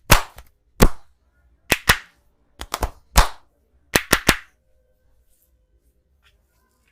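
Sharp hand slaps of a barber's percussive massage, palms striking the body about a dozen times in quick groups of one to three, then stopping after about four and a half seconds.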